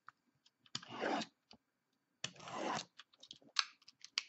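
Packaging of a trading card box being handled and opened: two longer scratchy rasps, about a second and about two and a half seconds in, among scattered light clicks and taps.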